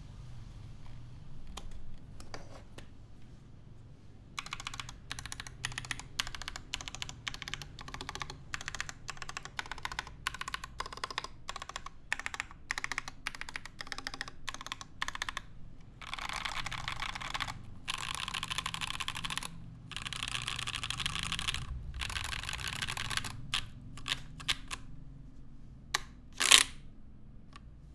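Typing on an h40io Amano R2 mechanical keyboard: top mount, aluminium plate, Krytox-lubed KTT Lauriel switches and GMK keycaps. A few scattered keystrokes at first, then steady typing from about four seconds in that turns into fast, near-continuous runs, thinning out to single strokes near the end, with one much louder keystroke.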